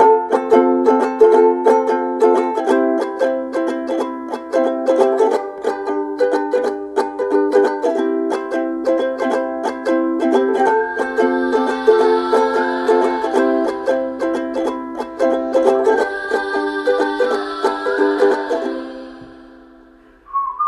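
Background music: a plucked string instrument picking a quick, even run of notes, fading out near the end.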